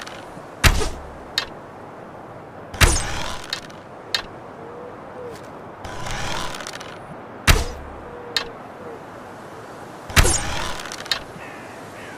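A wooden bow being shot four times: each shot is a sharp snap, followed a moment later by one or two lighter clicks. Softer rustling swells come in the gaps between shots.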